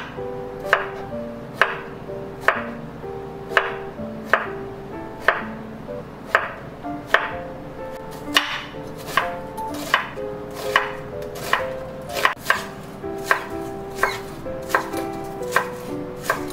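Santoku-style kitchen knife chopping vegetables (zucchini, onion, scallions) on a wooden cutting board: sharp knocks about once a second, coming faster in the second half. Light background music plays underneath.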